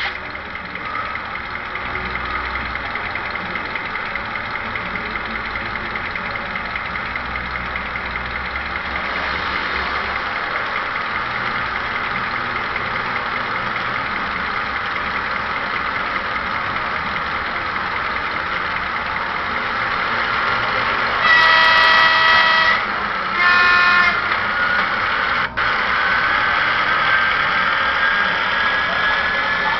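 Sampled diesel locomotive sound of a Vossloh G2000 from an ESU LokSound decoder, played through a model train's small speaker: the engine runs steadily, two short horn blasts sound about two-thirds through, the second a little higher than the first, and a slowly rising whine follows near the end.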